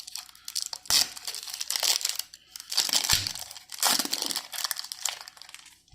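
A foil Yu-Gi-Oh booster pack crinkling as it is torn open and the cards pulled out, in a run of irregular crackling rustles.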